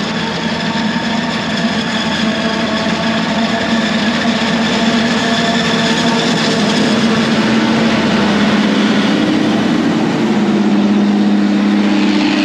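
Forage harvester chopping standing corn while a truck runs alongside, a steady heavy diesel engine drone with a change in engine tone about ten seconds in.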